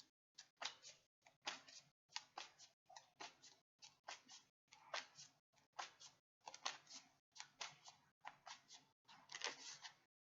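Tarot cards being shuffled by hand: a quiet, irregular run of soft card slaps and riffles, a few a second.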